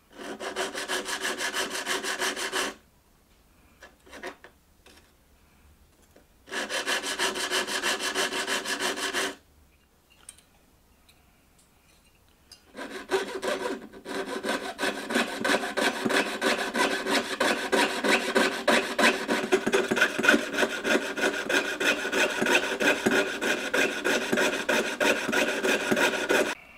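Rapid hand strokes on a small mild-steel ring held against a wooden bench pin. First come two short bursts of about three seconds with a small file. Then, from about thirteen seconds in, a jeweler's piercing saw runs steadily, cutting the ring into a horseshoe-shaped valve cotter.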